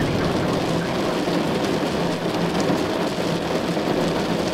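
Steady rain falling during a thunderstorm.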